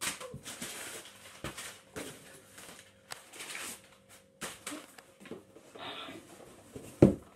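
Crumpled kraft packing paper rustling and crinkling in a series of bursts as it is pulled out of a cardboard box. Near the end comes a single loud thump as the box is handled.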